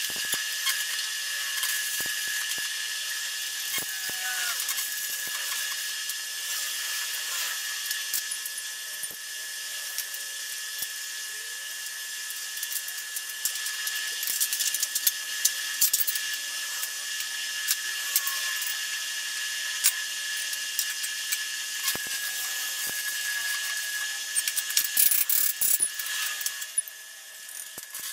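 Stick welder arc crackling and sizzling steadily as steel tubing is welded, with many sharp pops and a steady high whine underneath.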